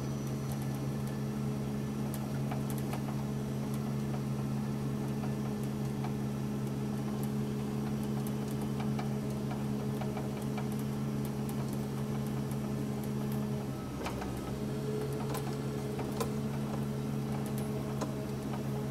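Ponsse Ergo forest harvester's diesel engine running steadily, heard from inside the cab as the machine travels along a trail. It holds a low, even hum that dips briefly and shifts slightly in tone about 14 seconds in, with scattered light clicks and rattles from the cab.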